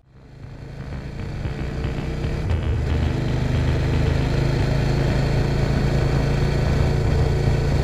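Motorcycle engine running steadily at cruising speed, heard from the rider's seat with wind noise; it fades in over the first two seconds, then holds an even note.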